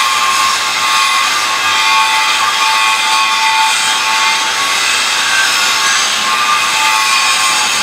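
Steady mechanical noise of workshop machinery running, with a faint whine and no clear rhythm.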